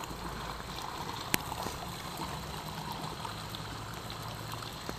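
Steady rush of flowing stream water, with one sharp click about a second and a half in.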